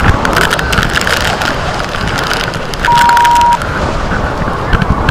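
Strong wind buffeting the microphone in heavy gusts, a dense rushing noise with sharp crackles. About three seconds in, a single steady high beep sounds for under a second.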